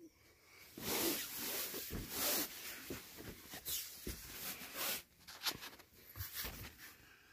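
Irregular rustling with scattered light knocks and creaks, as a person shifts on a camp cot and handles the phone. The rustling is thickest from about a second in to about five seconds, with smaller clicks after.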